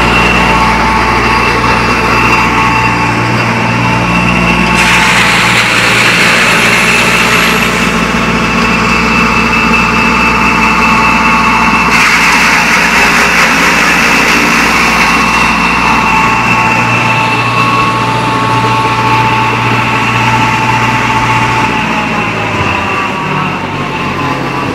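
Green corn stalk crusher running at full speed: a loud, steady machine din with a high, constant whine from its spinning cutter and blower. It grows harsher and noisier through the middle.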